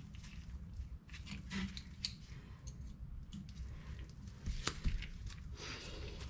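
Scattered clicks and scrapes of hand tools and metal parts being handled during reassembly of a car's rear axle and suspension, over a steady low hum; one sharper click comes a little before the end.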